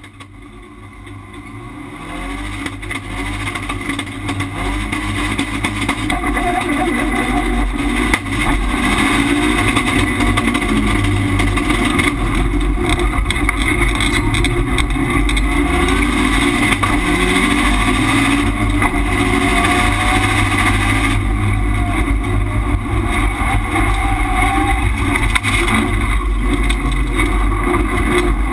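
Turbocharged Subaru Impreza rallycross car's flat-four engine at full race pace, heard from inside the cabin, revs rising and dropping again and again through gear changes. The sound builds up from silence over the first several seconds.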